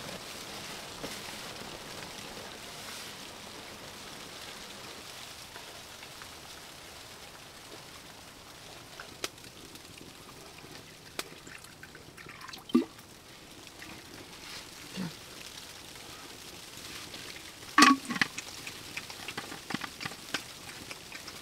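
A drink poured from an insulated bottle into a cup, with sharp clicks and knocks of the bottle, lid and cup being handled, the loudest cluster near the end, over a steady hiss of rain on the tent.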